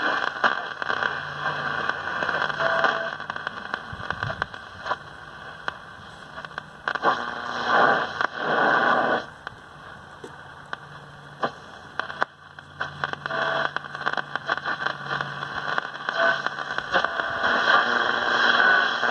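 Static and crackle from a 1950 Zenith Trans-Oceanic G500 tube shortwave receiver as its dial is tuned between stations, with a few brief whistles, dipping quieter midway.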